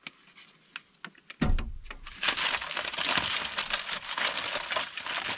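Aluminium foil crinkling and crackling as it is folded and crimped shut around corn on the cob by hand, starting about two seconds in. Just before it there is a single low thump.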